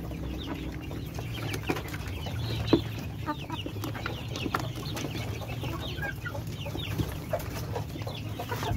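Chickens clucking and calling, many short high falling calls scattered throughout, with light rustling and taps from hands working through the floor litter.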